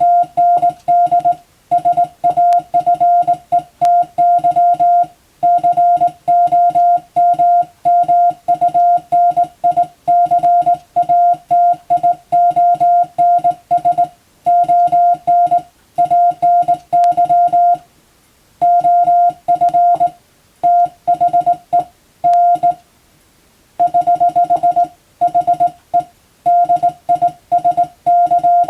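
Morse code (CW) sent as a single-pitch beep, keyed on and off in short dits and longer dahs, with short gaps between characters and a couple of longer pauses between groups.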